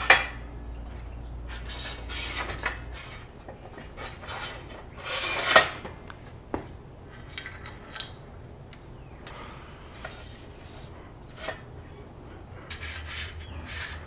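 Metal-on-metal clicks and scrapes as a bicycle fork's steel steerer tube is slid up through the headset bearing cups and headset parts are fitted over it. There is a sharp click at the start, a louder sliding scrape about five and a half seconds in, and a few lighter clicks and rubs after that.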